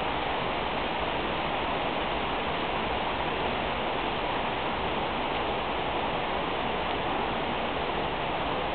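Tropical-storm rain falling steadily, an even hiss of water with no let-up.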